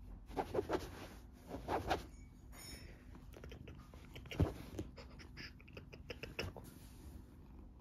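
Scottish Fold cat purring steadily, with rustling as a hand rubs its fur and a few scratchy clicks in the first two seconds, the sharpest at about four and a half seconds.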